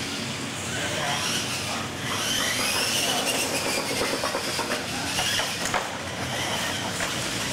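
Radio-controlled monster trucks' electric motors and geared drivetrains whining, the pitch rising and falling with throttle, with a few sharp clicks and knocks as they drive over dirt.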